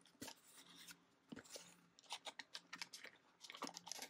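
Faint, scattered clicks and taps from small glass pigment sample bottles with plastic lids being handled and picked at in their box.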